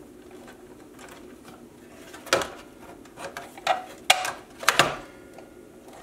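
A handful of short clicks and knocks of metal and plastic parts being handled inside a small desktop computer's metal case, starting about two seconds in.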